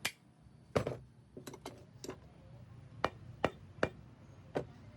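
About ten sharp taps and knocks, unevenly spaced, from hand tools and metal parts being worked during a bearing change on a 2 HP monoblock pump.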